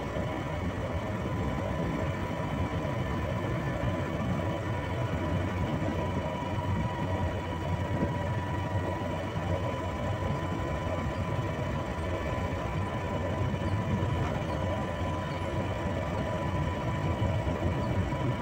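Motor scooter's engine and road noise at a steady cruising speed, with a thin steady whine over it.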